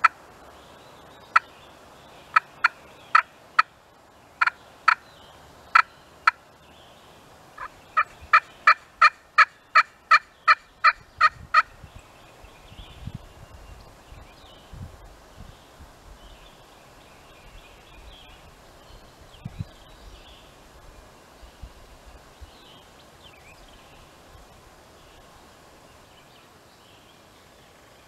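Turkey yelps: sharp, loud notes, a few spaced apart, then a fast, even run of about a dozen at roughly four a second, after which the calling stops. Faint low knocks and rustling follow.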